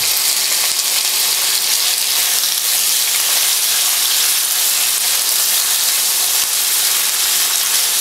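Thin strips of raw beef sizzling in hot vegetable oil in a cast-iron frying pan, just put in and being stirred with a silicone spatula; a steady, even hiss.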